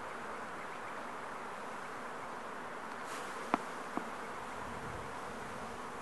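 Honeybees buzzing in a steady drone around an open Langstroth hive, with two short knocks about three and a half and four seconds in.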